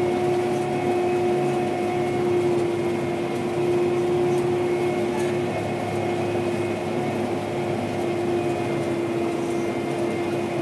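Gleaner R72 combine heard from inside its cab while threshing wheat: the engine and threshing machinery running steadily under heavy load, a constant drone with a steady hum over it.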